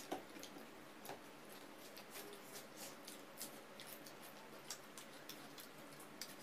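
Faint, irregular small clicks and smacks of eating by hand: chewing, and fingers working rice and curry on the plates.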